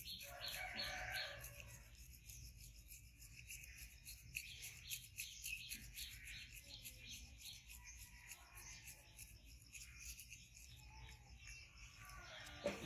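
Toothbrush scrubbing a pet macaque's teeth: a faint, rapid run of soft scratchy brushing strokes, a little louder in the first couple of seconds.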